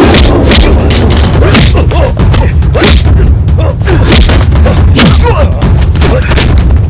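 Film fight sound effects: a rapid, uneven series of punch and body-blow impacts, with short grunts and cries between the hits, over a steady deep rumble.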